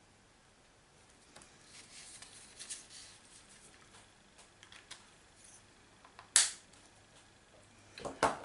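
Faint rustling and scratching of card stock being handled on a craft desk, then one sharp click about six seconds in and a few light knocks near the end.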